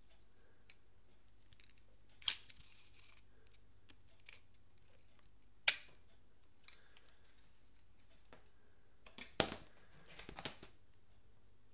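Clear tape pulled from a plastic Scotch dispenser and torn off on its cutter: two sharp rips a few seconds apart, the second the louder. Near the end, a cluster of quieter taps and rubs as the tape is handled against a latex balloon.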